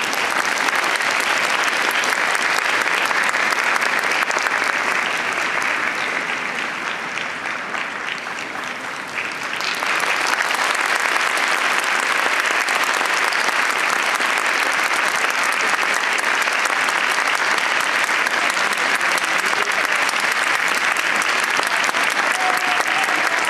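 Large stadium crowd applauding steadily, easing slightly in the middle and swelling again about ten seconds in.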